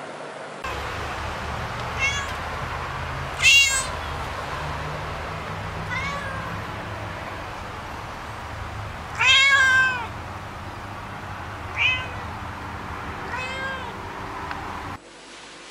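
A cat meowing about six times, the loudest calls a second or so long. Under the calls runs a steady hiss of rain.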